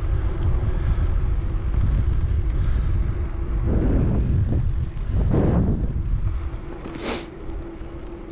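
Wind rumbling and buffeting on the bare built-in microphone of a GoPro Hero 9, which has no windscreen or deadcat, while cycling. There are louder swells about four and five and a half seconds in, and a short hiss near the end.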